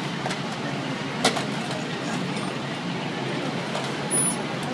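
Steady low rumble of idling heavy emergency vehicles with street noise around them. A single sharp knock comes about a second in, and a brief louder burst comes near the end.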